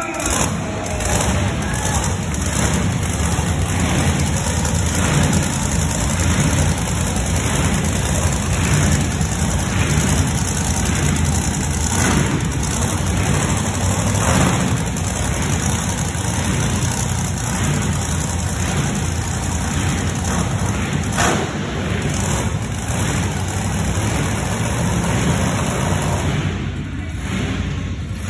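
Monster truck engine running loud as the 'Rat Nasty' truck is driven around the dirt arena floor.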